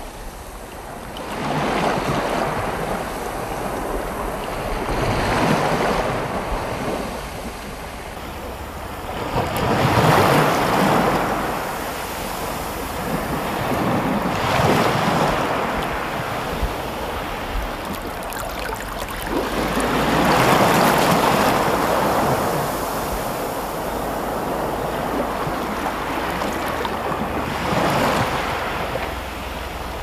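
Small sea waves washing in over a pebble shore, swelling and fading every few seconds, with a low wind rumble on the microphone.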